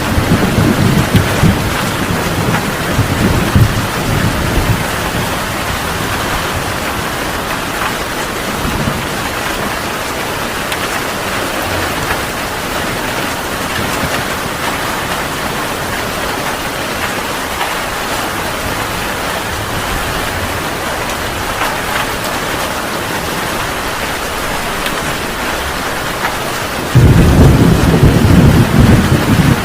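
Heavy rain falling steadily in a thunderstorm. A rumble of thunder dies away in the first few seconds, and a loud new roll of thunder breaks in suddenly near the end.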